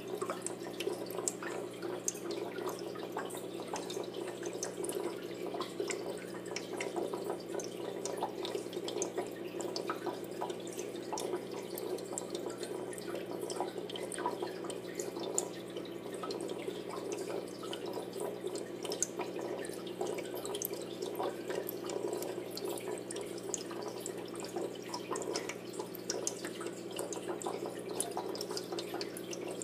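Aquarium water trickling and splashing, a steady patter of drips and bubbles with a low, even hum beneath.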